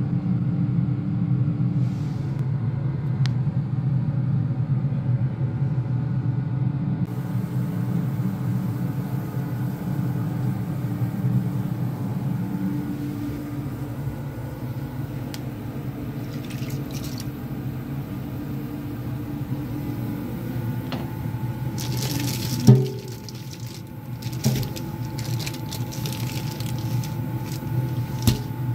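Tap water running and splashing in a stainless steel kitchen sink over a steady low hum, with one sharp knock about three-quarters of the way through.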